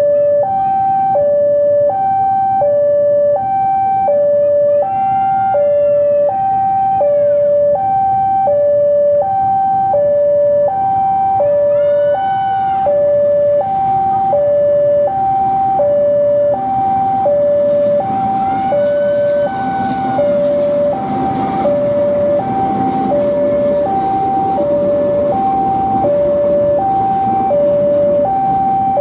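Railway level-crossing warning alarm sounding a steady two-tone alternation, high then low, about one pair per second. Under it the CC 203 diesel locomotive's engine rumble grows louder in the second half as the train accelerates past.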